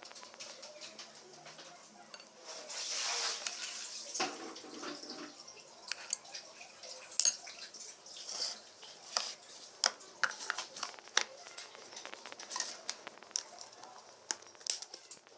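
A spoon scraping and clinking against plates and plastic food containers as food is dished out, with scattered sharp clicks and a rustling swish about three seconds in.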